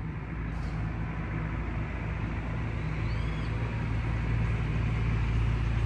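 Bus engine running, a steady low hum that grows slowly louder.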